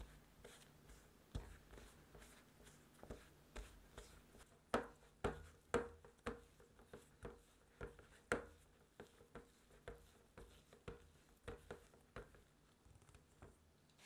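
Silicone spatula cutting and folding flour into butter-and-egg cookie dough in a stainless steel bowl. It makes a string of short taps and scrapes against the bowl, about two a second, loudest in the middle stretch.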